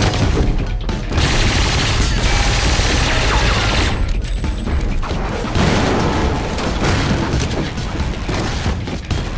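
Two long bursts of submachine-gun fire, the first about a second in and the second past the middle, over loud action-film music.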